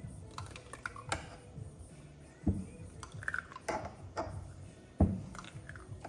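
Motorcycle front fork being pumped up and down by hand to bleed fresh fork oil through and work the air out: a low thump about every two and a half seconds, with metallic clicks and clinks between.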